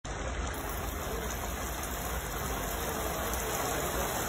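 Artificial rain from a film-set rain rig pouring down steadily onto the set floor, a dense hiss with a low rumble underneath, cutting in abruptly at the start.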